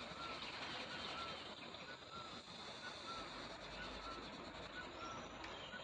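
A bird repeating one short, high call about once a second, faint, over a steady outdoor hiss.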